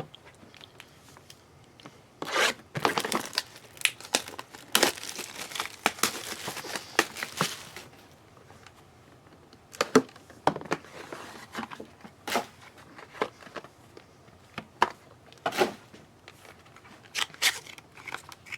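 Plastic wrapping on a trading-card box being torn open and crumpled, with a long stretch of tearing a few seconds in, then scattered sharp clicks and short rustles as the cardboard and packs are handled.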